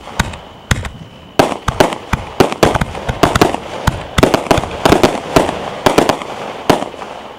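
Aerial fireworks going off: sharp bangs, a few spaced ones at first, then coming thick and fast from about a second and a half in, stopping shortly before the end.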